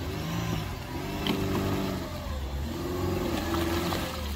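Suzuki Jimny's engine working hard under load, its note rising and falling, as the wheels spin and churn mud while the stuck SUV is winched up out of a boggy ditch.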